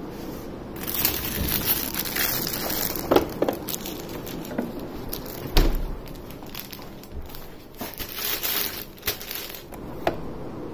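Food being taken out of a refrigerator and handled: plastic wrapping crinkling and rustling with scattered knocks and clicks, and one heavier thump about halfway through.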